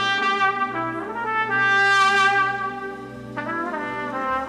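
Solo trumpet playing slow, held notes over a steady low backing drone. The longest note swells to its loudest near the middle, and a new note comes in near the end.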